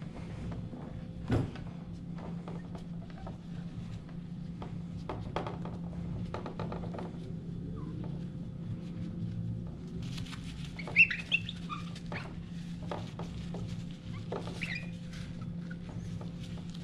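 Glass whiskey decanter being handled and wiped: small clinks and knocks of glass on glass, a sharp clink about a second in and a louder one about eleven seconds in, and short high squeaks around that clink and again a few seconds later, over a steady low hum.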